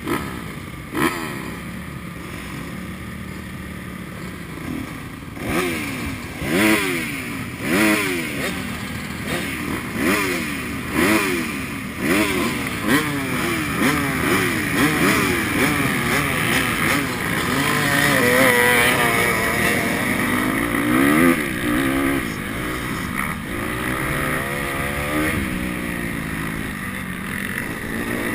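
Motocross bikes at the start line. A Honda CRF250R's four-stroke single and the engines around it idle, then are blipped in quick revs about once a second. Later the engines run hard and steady as the pack launches and rides off up the track.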